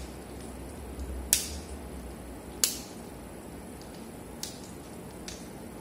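Tripod leg locks being snapped shut: two sharp clicks about a second and a quarter apart, then two fainter clicks near the end.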